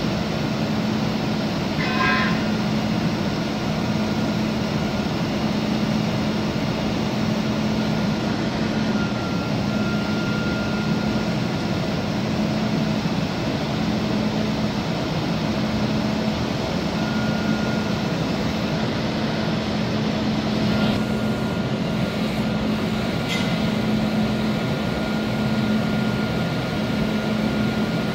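Cummins ISL9 diesel engine of a Freightliner 108SD bucket truck running steadily, with a thin higher whine that comes and goes. Brief clatters come about two seconds in and twice more in the last third.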